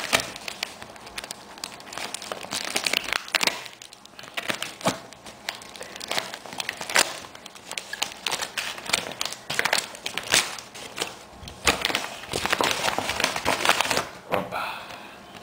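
Packaging being crumpled and torn open by hand: dense, irregular crinkling and rustling with many sharp crackles.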